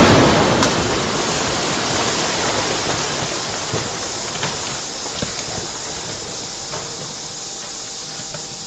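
The long rumbling tail of a rock-blasting charge of hundreds of kilograms of explosives set off in a roadside cliff face. It fades steadily over several seconds, with a few scattered knocks of rock as the blasted cliff settles.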